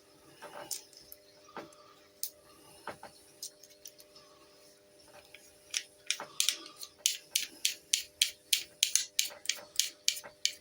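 Small clicks and taps of replica airgun pistol parts being handled and fitted together, scattered at first, then about halfway through a quick run of regular clicks, about four a second.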